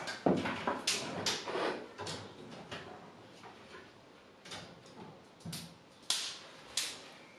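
Aluminium track-saw guide rail being set down and shifted on a wooden jig: a run of light knocks and scrapes in the first couple of seconds, a quiet stretch, then a few sharp clicks.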